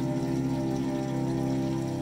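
Ambient synth drone from a norns-based Fakes sound computer running the 'synthy' script: a soft held chord of sustained tones. The trickle and splash of a small garden water fountain runs underneath.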